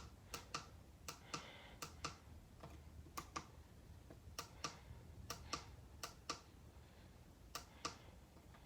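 Faint, irregular clicks of small buttons being pressed, about two a second.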